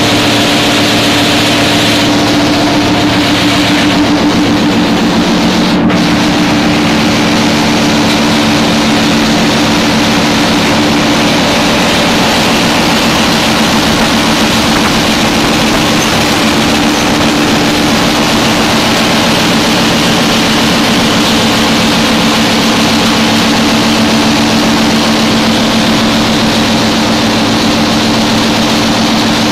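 BS-1000 copper cable granulator line running: electric motors, crusher and conveyors give a loud, steady mechanical roar with a constant low hum.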